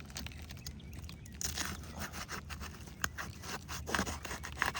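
Irregular scraping and crackling of asphalt roof shingles being handled and lifted, with bursts after about a second and a half and again near the end.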